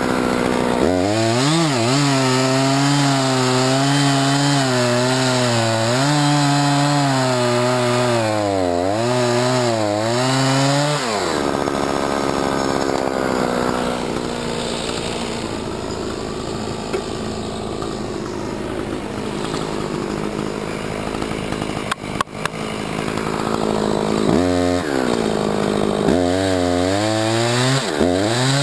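Husqvarna 357XP two-stroke chainsaw cutting into a tree, its engine pitch wavering and dragging down under load for about ten seconds. It then runs on more steadily and higher without cutting, and goes back into the wood in short bouts near the end.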